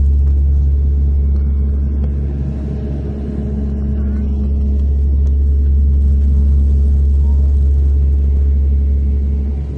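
Dash 8-300 turboprop's propellers and engines, a loud, steady low drone heard from inside the cabin. It eases slightly about three seconds in, then returns.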